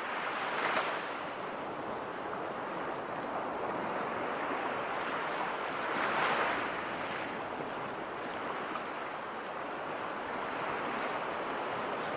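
Sea surf washing in: a steady rushing noise that swells about a second in and again around six seconds in.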